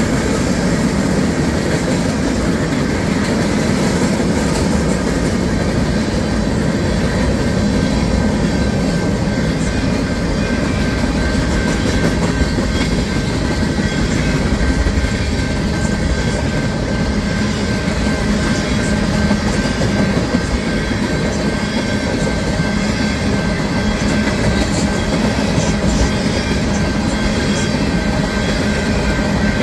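Union Pacific manifest freight train's tank cars rolling steadily through a grade crossing, their steel wheels clacking over the rails without a break.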